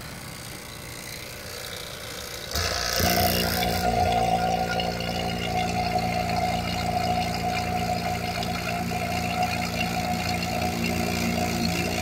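Refrigeration vacuum pump switched on about two and a half seconds in, starting to evacuate a mini-split's line set: a brief rush of air noise as it begins pulling down, then a steady running hum.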